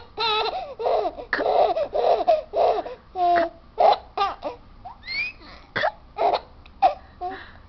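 A baby laughing in short repeated bursts, with hiccups among the laughs and a quick rising squeal about five seconds in.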